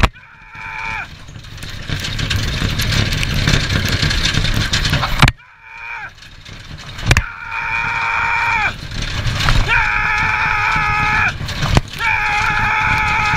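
A driver shouting long, held yells to urge a galloping horse team on, five times, the later ones longest and loudest. Under them is a steady rush of wind and track noise.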